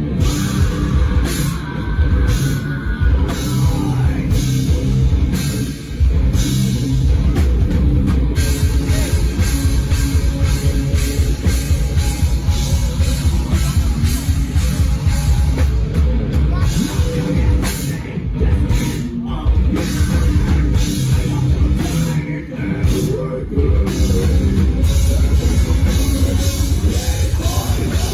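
A rock band playing loudly live in a heavy style, with a fast-driving drum kit, guitars and singing. The band drops back briefly a few times.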